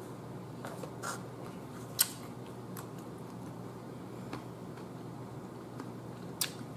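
Eating cucumber slices with wooden chopsticks: a few short, sharp clicks and crunches as slices are picked off the plate and bitten, the loudest about two seconds in and another near the end, over a steady low room hum.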